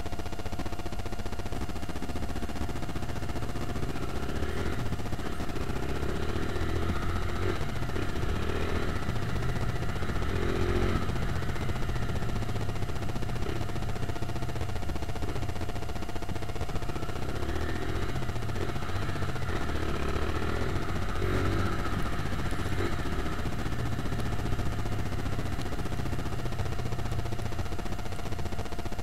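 Small motorcycle engine running while riding slowly, its pitch swelling and easing every few seconds with the throttle, over a steady low rumble.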